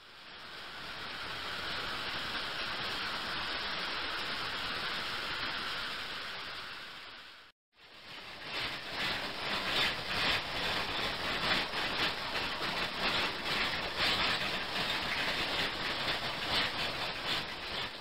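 Ultrasonic cleaning tank running: a steady hiss from the agitated water, then after a brief break a rougher, uneven churning with many small crackles.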